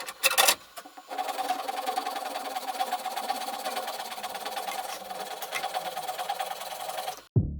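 A short loud clatter, then a machine running steadily for about six seconds with a fast, fine rattle, stopping abruptly near the end.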